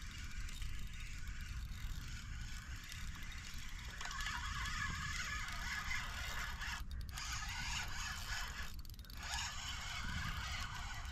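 Fishing reel winding in a hooked fish, a continuous fast ticking whir of its gears and clicker that stops briefly twice, about seven and nine seconds in.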